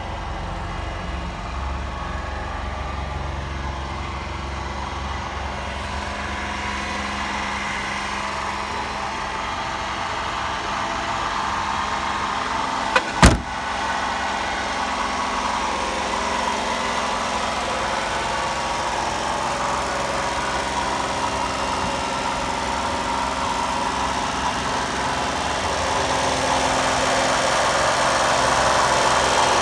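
Honda Acty kei truck's small three-cylinder engine idling steadily, getting louder near the end. A single sharp bang about thirteen seconds in.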